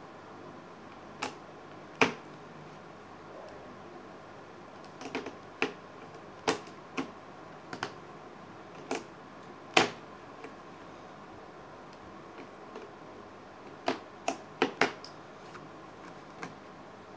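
Irregular sharp clicks and taps of crayons and pencils handled against a plastic art-set case, about twenty in all, the loudest about two seconds in and about ten seconds in, with a quick run of clicks near the end.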